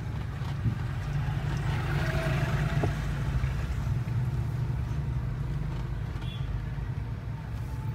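Mahindra Thar's engine running steadily at low speed, a low hum heard from inside the cabin as the SUV creeps along.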